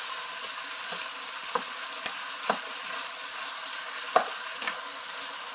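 Chicken pieces with onion, garlic and ginger sizzling steadily in oil in a frying pan as they brown. A spatula stirring them knocks against the pan about five times, loudest about four seconds in.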